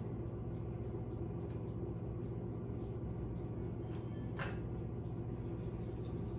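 Silicone whisk stirring a thick chili paste and oil in a stainless steel bowl, heard over a steady low hum.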